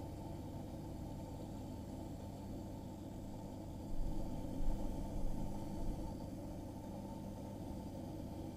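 Aquarium pump humming steadily with a low mains buzz, with a few low bumps about four to five seconds in.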